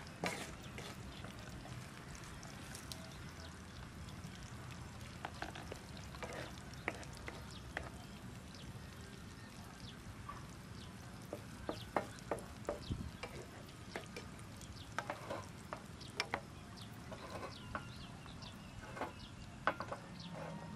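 Eggs and meat frying in a nonstick pan on a portable gas stove, with a plastic spatula stirring and scraping, tapping sharply against the pan at irregular moments, more often in the second half.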